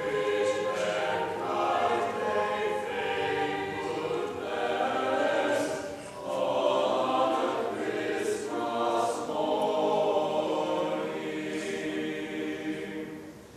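Mixed-voice chamber choir singing the closing phrases of a piece, with a brief break between phrases about six seconds in and the final chord dying away near the end.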